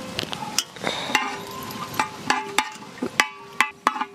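A metal ladle stirring in a metal cooking pan, knocking against the pan about ten times at irregular intervals. Each knock leaves a short metallic ring, over a light hiss.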